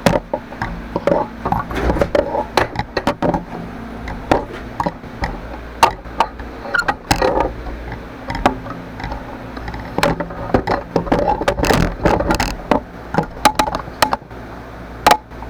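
Irregular knocks, clinks and short scrapes of small metal parts and tools being handled on a workbench, over a faint steady hum.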